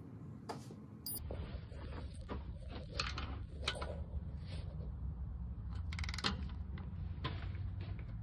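Torque wrench ratcheting and clicking as bolts, among them the oil pan drain plug, are tightened: scattered sharp clicks with a quick run of ratchet ticks about six seconds in. A low steady hum comes in about a second in.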